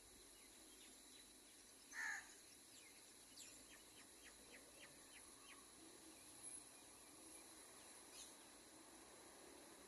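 Faint outdoor ambience with a steady high hiss, a single short bird call about two seconds in, then a run of faint quick chirps, roughly three a second, and another short call near the end.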